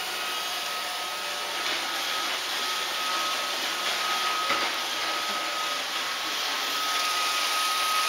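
iRobot Roomba robot vacuum running: a steady whirring hum with a thin, steady high whine through it.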